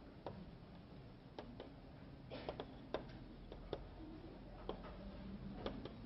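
Chalk tapping and scratching on a blackboard as characters are written: a faint series of irregular ticks, with a quick cluster of them about halfway through.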